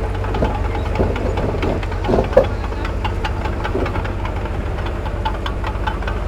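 Heavy diesel earthmoving machinery running steadily, with a low rumble and scattered clanks and knocks. One louder knock comes about two and a half seconds in.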